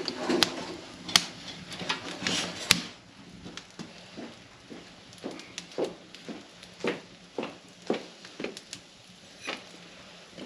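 Sharp clinks and knocks of cooking at an open wood fire: a metal pot, lid and ladle and the firewood being handled. A few loud knocks come in the first three seconds, then a lighter run of taps about twice a second.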